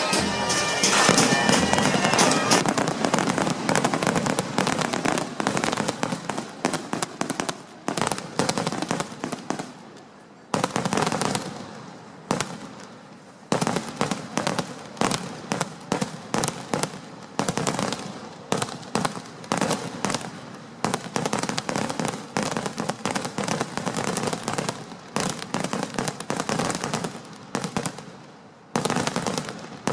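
A barrage of aerial firecrackers bursting overhead: dozens of sharp bangs in dense, rapid volleys with a few brief lulls. Bagpipe music sounds for the first couple of seconds before the bangs take over.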